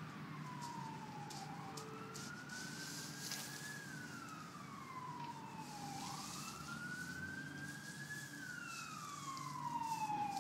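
Emergency vehicle siren wailing, its pitch slowly rising and falling in long sweeps about every four seconds.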